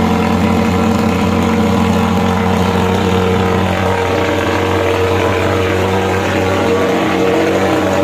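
Superhawk thermal fogging machine's pulse-jet engine running steadily just after being started, a loud, even drone.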